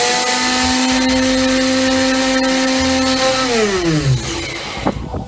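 Homemade mixer grinder's electric motor running at a steady whine while grinding inside the covered aluminium pot. It is switched off about three and a half seconds in, and its pitch falls away as it spins down over about a second. A couple of light knocks follow near the end.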